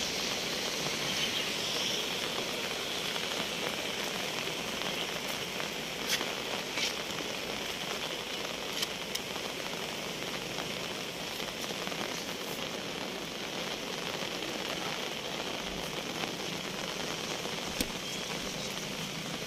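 Steady rain falling, an even hiss with a few faint taps scattered through it.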